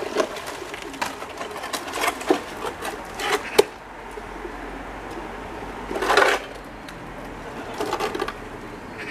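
A crumpled sheet-metal road sign being hauled out of a canal on a magnet rope: sharp knocks and clanks as it catches on the stone edge, a louder scraping rasp just after 6 seconds, and rattling near the end as it is lifted out of the water.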